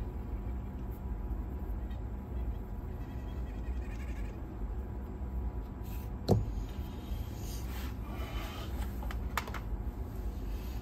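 A few light clicks and knocks of small cassette-deck parts being handled on a workbench, over a steady low hum.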